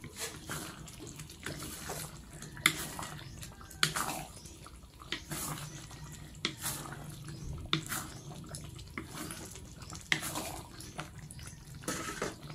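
A wooden spatula stirring beef in a thick cornstarch-thickened sauce in a wok. The sauce squelches and sloshes, and the spatula knocks against the pan every second or so.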